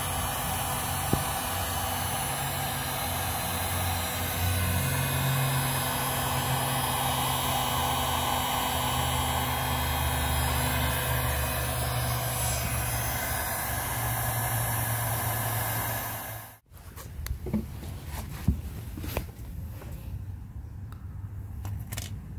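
Electric heat gun blowing steadily, a loud hiss over a low motor hum, as it heats a muffler repair patch to cure it. It cuts off suddenly about three quarters of the way through, leaving a few light clicks and knocks.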